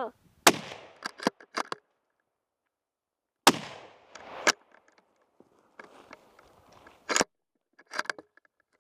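Rifle shots: two loud shots about three seconds apart, each trailing off into an echo, with shorter sharp clicks and knocks between and after them.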